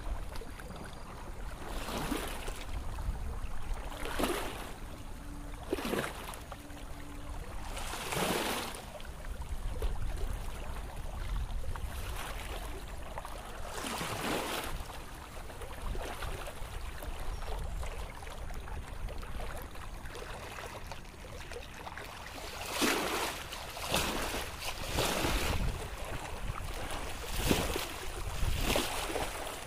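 Wind buffeting the microphone over the rush of muddy floodwater running down a shallow channel. Brief swishing footsteps through the wet ground come every couple of seconds at first and bunch together near the end.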